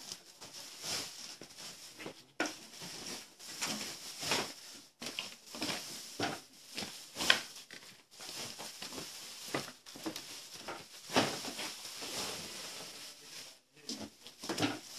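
Irregular rustling and soft knocks, with a sharper knock about seven seconds in.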